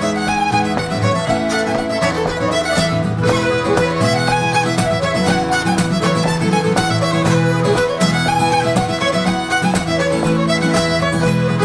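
Live Celtic session band playing a lively Scottish folk dance tune: fiddle carrying the melody over a driving strummed acoustic guitar, with mandolin and accordion.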